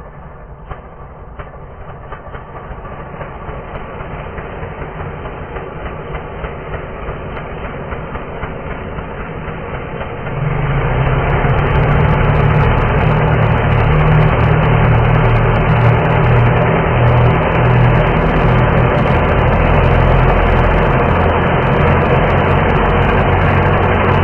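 Chainsaw engine sound, slowed down and drenched in reverb, so it runs deep and rumbling. For about ten seconds it builds gradually with faint ticks, then it abruptly jumps to a loud, steady full run.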